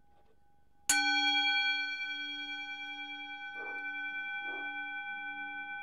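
Metal singing bowl struck once about a second in, then ringing on with several steady tones and fading slightly. Two short dog barks come partway through, the dog reacting to the bowl as if it were a doorbell.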